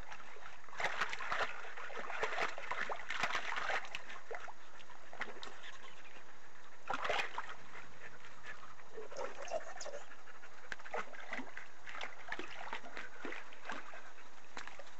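A dog splashing in a small plastic water bin, dunking and bobbing a squeak toy with her muzzle. The water sloshes in irregular bursts, heaviest in the first four seconds and again about seven seconds in.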